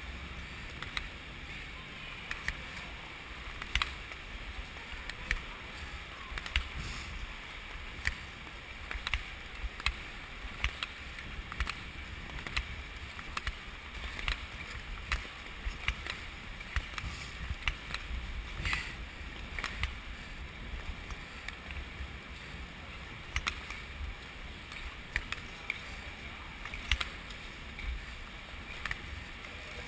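Speed skate blades scraping across the ice in a steady run of strokes, with sharp clicks about one to two times a second as the skates push off and set down, over a continuous rushing hiss.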